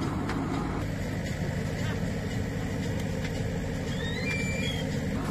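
Diesel engine of a JCB 3DX backhoe loader running steadily under work, a low continuous rumble. A few brief high chirps sound about four seconds in.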